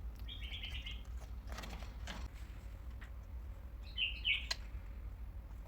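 African grey parrot giving short, high chirps in two quick runs, the first just after the start and the second about four seconds in, over a low steady hum.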